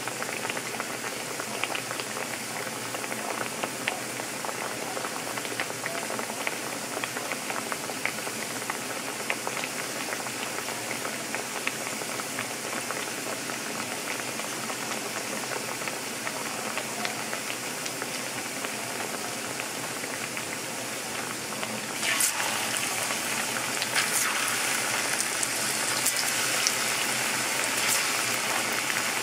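Plantain slices frying in hot oil: a steady sizzle with fine crackling, which grows louder and pops more sharply about 22 seconds in.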